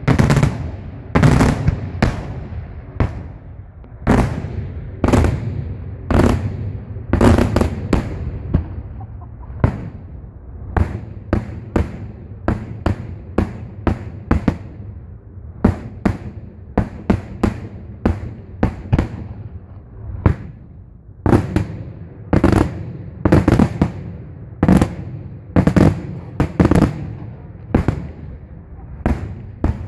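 Daytime fireworks display: aerial shells exploding in a rapid, irregular series of loud bangs, about one or two a second, each trailing off in a low rumbling echo.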